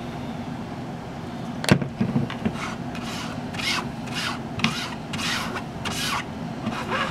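A plastic card scraping wet acrylic paint across a silkscreen laid on polymer clay, in repeated strokes about two a second. Before the strokes begin there is a single sharp tap.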